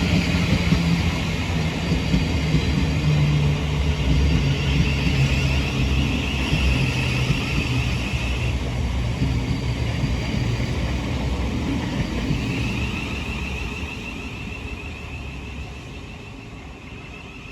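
Thameslink Class 700 electric multiple unit running at the platform. A low motor hum sinks slightly in pitch under a wavering higher whine that breaks off and starts again, and the sound fades steadily over the last few seconds.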